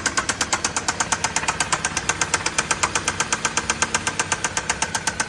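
Car engine idling with a loud, rapid, evenly spaced tapping that keeps time with the engine. The oil level reads at the minimum mark.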